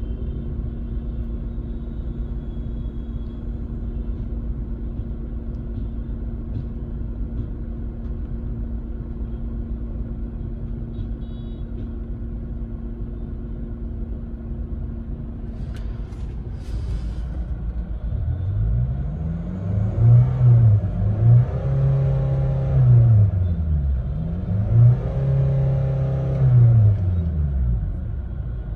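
Chevrolet Cruze 2.0 four-cylinder turbo engine idling steadily, then revved twice near the end. Each time the revs climb, hang flat at a ceiling for a couple of seconds and fall back. The engine will not rev past about 4000 rpm, a lack of pickup that goes with turbo boost system performance fault codes P2263/P003A.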